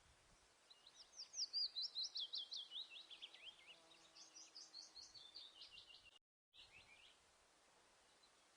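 A songbird singing a long, fast series of high, downward-slurred notes, about five or six a second, sliding gradually lower in pitch over several seconds. A brief dead gap cuts the song about six seconds in, a few more notes follow, and then only faint background hiss remains.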